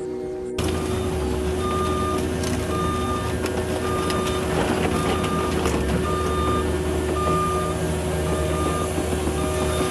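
A heavy vehicle's backup alarm beeping about once a second over the steady running of its engine.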